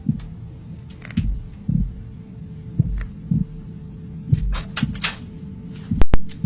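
Dull low thumps, mostly in pairs about half a second apart and repeating every second or so, over a steady hum. Two sharp, loud clicks close together come near the end.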